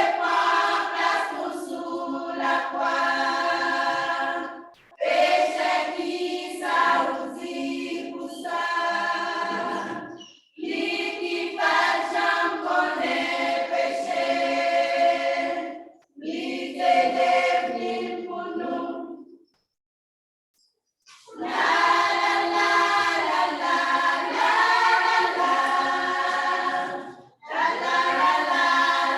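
A choir singing a Christian hymn a cappella, in phrases several seconds long separated by short breaths. There is a full pause of about a second and a half about two-thirds of the way through.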